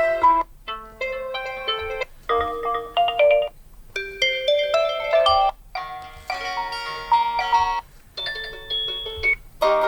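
Realme 9i default alarm tones previewed one after another: a string of short melodic chime-like phrases, each lasting a second or two, with a brief break before the next tone starts.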